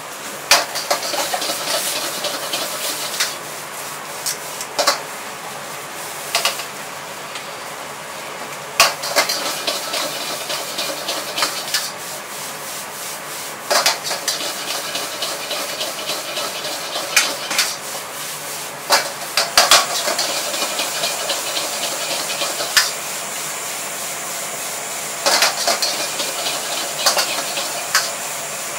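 A metal ladle scraping and clanking against a wok as fried rice is stir-fried and tossed, with sharp irregular knocks every second or few. A steady hiss of the high-heat gas burner and frying runs underneath.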